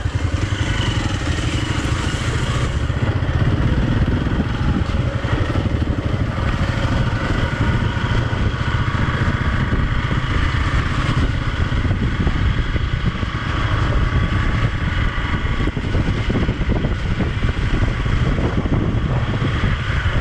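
Hero Xpulse 200 motorcycle's single-cylinder engine running steadily as the bike is ridden, with a fine, even firing pulse throughout.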